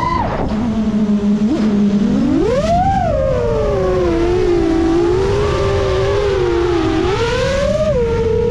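A 7-inch FPV quadcopter's Emax Eco II 2806.5 motors spinning HQ 7x3.5x3 three-blade props give a whine whose pitch rises and falls with the throttle. It drops low for a second or two, climbs sharply about two and a half seconds in, then wavers. Wind rush on the onboard microphone lies underneath.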